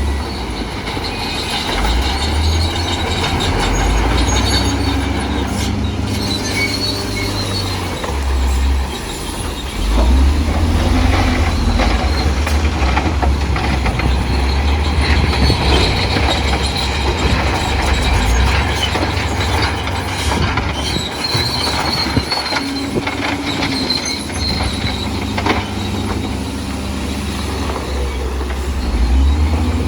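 Bulldozer working: its diesel engine runs under load, rising and falling, and its steel tracks squeal and clank. The engine grows louder about ten seconds in.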